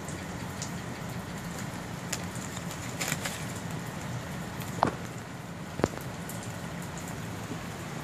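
Steady outdoor background noise with a few sharp ticks and clicks scattered through it, the two loudest about five and six seconds in.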